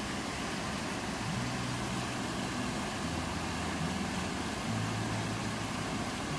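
Off-road 4x4 engine running at low revs, its pitch stepping up and down every second or two as the vehicle crawls through a rocky river crossing, over a steady hiss of flowing water.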